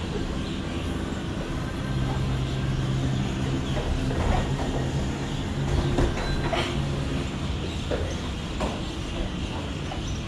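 Steady low mechanical hum over constant background noise, with a few faint short sounds in the middle.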